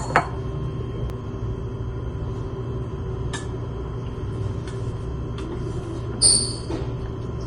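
Steady low rumble of a pot of water at a rolling boil on the stove, with a single bright metallic clink of a utensil against the pot about six seconds in.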